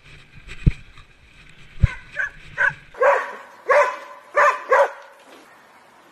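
Two heavy thumps in the first two seconds, then a dog barking about six times in quick succession, the last four barks the loudest.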